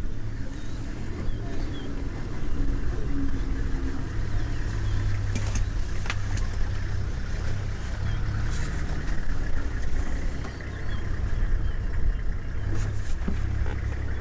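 Safari vehicle's engine idling with a low, steady rumble.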